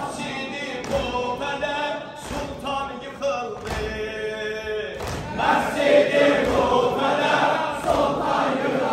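A man's voice chanting a melodic religious recitation, then a congregation of many voices joining in chorus about halfway through, louder.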